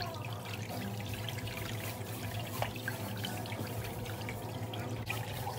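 Water trickling and splashing in a pedicure spa foot basin, over a steady low hum.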